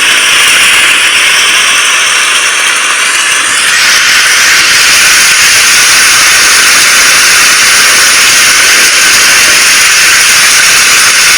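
Rain falling steadily, a dense even hiss. Faint high tones sound in the first few seconds.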